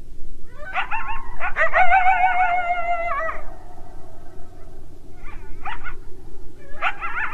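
Coyote yipping and howling: a few short rising yips run into one long, wavering howl of about two seconds, then two brief yips, and a new burst of yips near the end, over a steady background noise.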